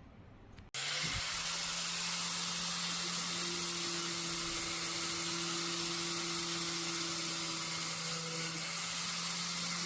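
Power tool with a flap disc grinding the bevel into a steel saw-blade knife: a steady grinding hiss over a motor hum, cutting in abruptly under a second in.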